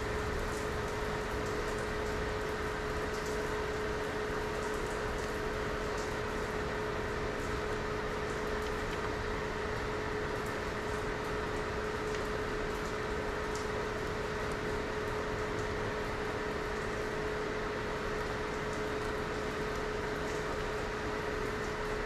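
Steady room noise: an even hiss with a constant hum, and a few faint ticks from hands handling wires and tape on the bench.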